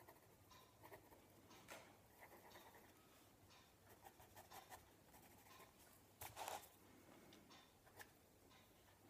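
Faint scratching of a fine-tip pen drawing on paper in short strokes, with a slightly louder scratch about six seconds in.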